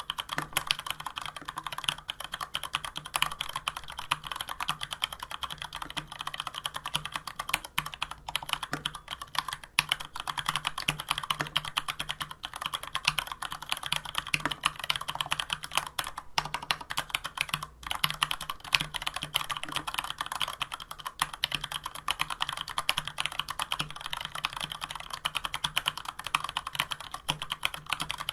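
Fast continuous typing on a Varmilo VA104M mechanical keyboard with stock, unlubricated Cherry MX Brown tactile switches and PBT keycaps: a dense stream of key clacks with a few brief pauses.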